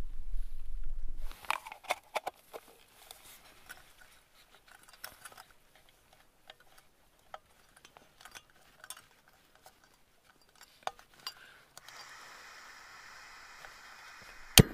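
Light clinks and knocks of metal camping cook kit being handled, with wind rumbling on the microphone for the first second or so. About twelve seconds in, a steady hiss of gas from a canister camping stove starts, ending in one sharp click.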